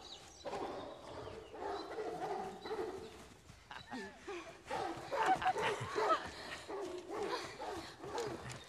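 A pack of hunting hounds baying and barking on the chase, many overlapping calls, growing louder and busier about halfway through.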